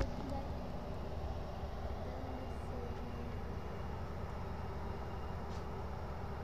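Steady low rumble of a Metrolink commuter train at the station, with a faint high tone joining about three seconds in.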